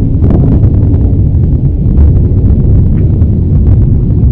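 Volcanic eruption of Popocatépetl: a loud, continuous deep rumble with a few sharp crackles scattered through it, as the crater vents an ash plume.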